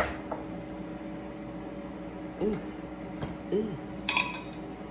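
Kitchen dishes and utensils being handled: a sharp knock at the start, then a few ringing clinks near the end, over a steady low hum.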